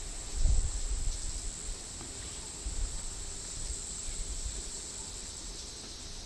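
Steady high-pitched drone of rainforest insects, with low rumbling bumps underneath that are loudest in the first second and a half.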